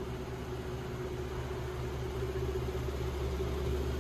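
Steady mechanical hum: a low drone with a steady higher tone over a faint hiss, growing slightly louder toward the end.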